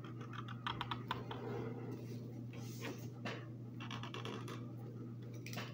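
Markers on paper as someone draws: quick scratchy strokes and clusters of sharp little taps, densest about a second in and again around three seconds in.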